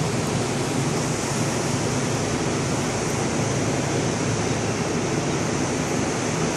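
Steady rushing noise with a faint low hum underneath.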